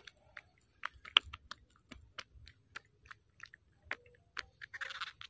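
Close handling noise of a just-caught fish and fishing line being taken in hand: irregular sharp clicks and crackles, the loudest about a second in, with a short rustle about five seconds in.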